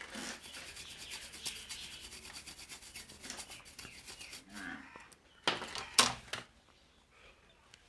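A brush scrubbing a TV power-supply circuit board: quick, rapid back-and-forth bristle strokes, then two louder single strokes about five and a half and six seconds in.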